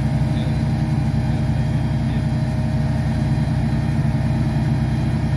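An engine idling steadily with an even, low, rapid pulse and no change in speed.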